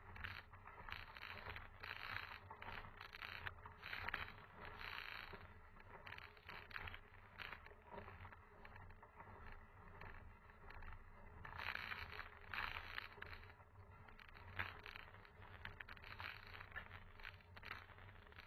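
Mountain bike rolling over a gravel road: tyres crunching on loose stones, with frequent small clicks and rattles.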